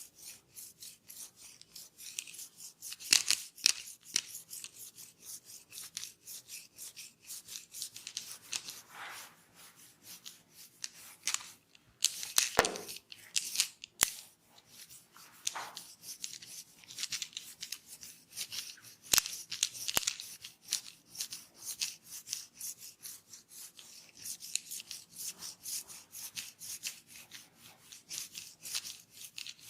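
Hands rubbing and scrubbing over a scalp and hair in a vigorous head massage: quick, repeated scratchy strokes, with a few sharper, louder clicks here and there.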